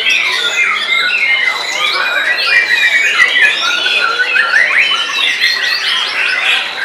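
Caged white-rumped shamas (murai batu) singing loudly at once: a dense, unbroken stream of overlapping whistles, trills and fast chattering phrases.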